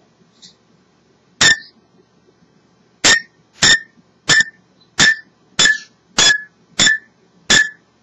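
African grey parrot making sharp, loud clicks: one about a second and a half in, then a steady run of eight, a little under two a second.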